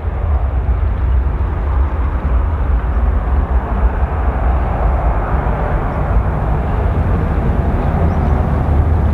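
Gulfstream V business jet's twin Rolls-Royce BR710 turbofans at take-off thrust as it climbs away after lift-off: a steady, loud jet rumble, deepest in the low end.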